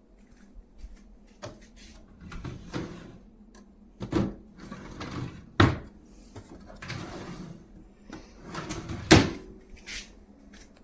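Dresser drawers sliding open and shut, several times, with a knock as each one hits home; the loudest knock comes about nine seconds in.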